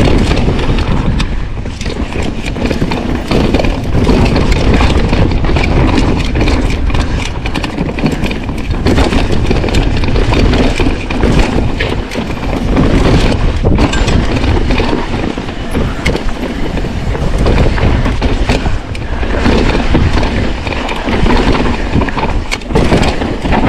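Mountain bike ridden down rough trail, heard on a camera microphone: wind buffeting and rumble with a constant clatter of knocks and rattles as the bike goes over roots and rocks.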